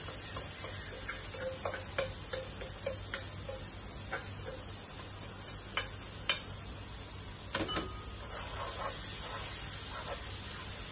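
Spinach and potatoes sizzling in a hot frying pan, a steady hiss as the water from the freshly added spinach cooks off. A spatula stirs and knocks against the pan, with two sharp clacks about six seconds in.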